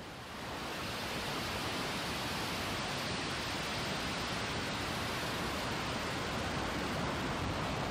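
Starship SN8's three Raptor engines firing at liftoff: a steady rushing rumble that grows slightly louder within the first half second, then holds.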